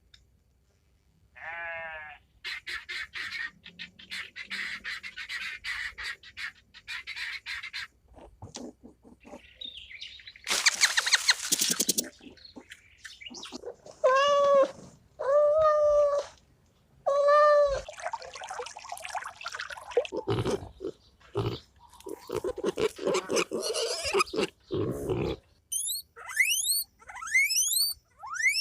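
Several different animal calls one after another: a short pitched call, a long stretch of rapid chattering, a loud harsh burst about ten seconds in, three clear pitched calls a little later, and quick rising chirps near the end.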